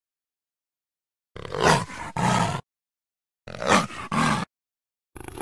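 Atrociraptor dinosaur sound effects: two roaring calls about two seconds apart, each a high falling cry running straight into a lower growl. A third call begins right at the end.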